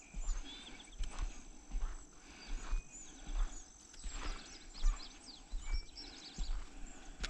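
Footsteps of a person walking on a dirt track, a steady thud at walking pace, with birds chirping around.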